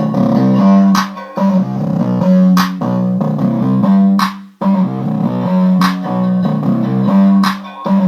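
Bass-boosted music with guitar and bass, played loud at maximum volume through Logitech Z200 desktop speakers. The deepest bass is missing. The music breaks off briefly about halfway through and again near the end.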